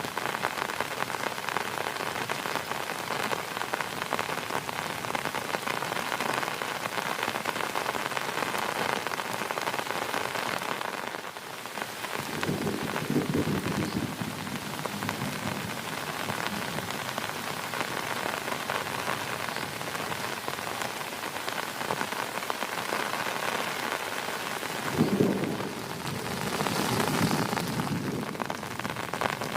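Heavy rain falling steadily, with thunder rumbling twice: once about twelve seconds in and again, starting with a sharper crack, about twenty-five seconds in.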